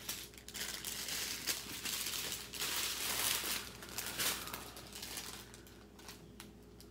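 Strips of thin plastic diamond-painting drill bags crinkling and rustling as they are handled and unfolded, loudest around the middle and quieter near the end.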